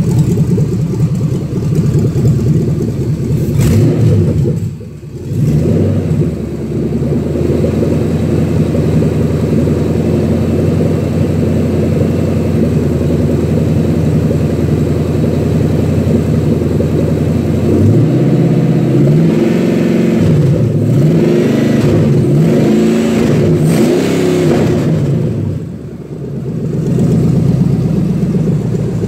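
GM 6.0 L LQ4 V8 running out of the vehicle on a test stand: idling steadily, then revved up and let back down several times in quick succession over the latter part. The sound briefly drops away about five seconds in and again near the end.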